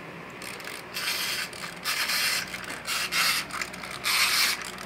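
Battery-powered toy fishing game running, its plastic gears rattling and clicking as the pond turns, coming in uneven bursts about once a second.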